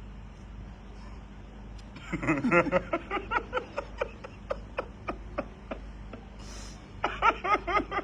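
A person laughing in two bouts of quick rhythmic ha-ha pulses, one about two seconds in and one near the end, over a low steady hum.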